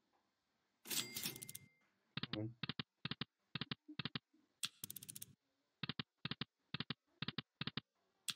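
Online slot-machine game sound effects as the reels spin and stop: a quick train of short, quiet clicks, about three a second. Brighter bursts come about a second in and again near the middle.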